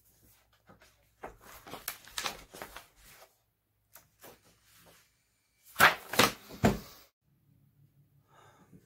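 Sheets of paper being handled: a run of rustles and crackles, with a louder burst about six seconds in.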